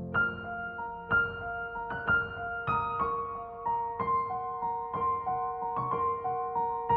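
Background piano music: single notes played slowly one after another over a held low note.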